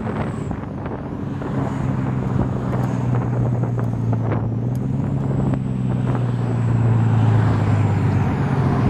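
Volvo B8R bus's rear-mounted diesel engine running while the bus drives along, heard from inside the passenger cabin. It makes a steady low drone over road noise, with a faint high whine that dips and rises. The drone grows louder about seven seconds in.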